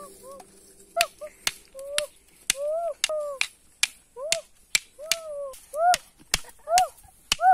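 Sharp clicks and snaps of dry sticks being handled and stacked into a fire pile, coming irregularly. A short rising-and-falling animal call repeats about once a second.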